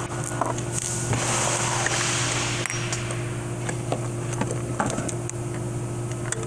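Light clicks and rustling from 4L60E transmission input drum parts being handled after its snap ring is removed, over a steady low hum.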